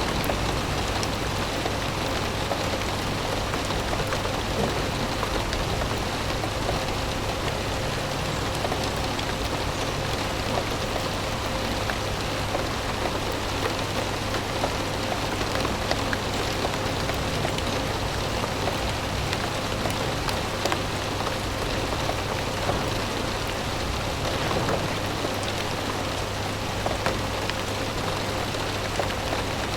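Steady rain noise with a constant 528 Hz solfeggio tone and low binaural-beat tones humming underneath.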